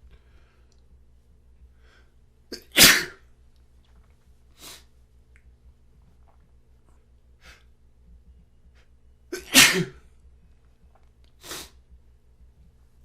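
A man sneezing twice, about seven seconds apart, each sneeze with a short intake just before it. Between the sneezes come a few quieter, short sniffles.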